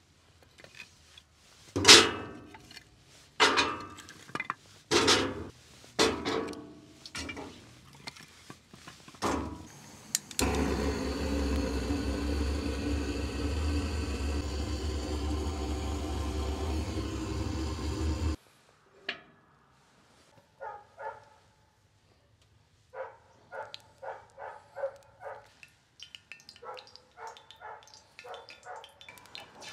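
Split firewood knocking and clunking as pieces are loaded into a cast-iron stove's firebox: a string of sharp knocks over the first ten seconds, the loudest about two seconds in. Then a steady rushing noise runs for about eight seconds and cuts off suddenly, followed by runs of quick light clicks near the end.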